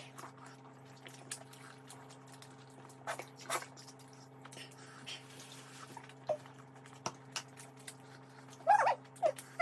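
Eating sounds: scattered short clicks and smacks of chewing and utensils over a steady low electrical hum, with a brief high vocal sound near the end.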